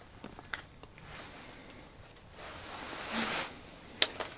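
Close rustling and handling noise as a large fish is lifted and held, swelling into a louder rustle about two and a half seconds in, then two sharp clicks near the end.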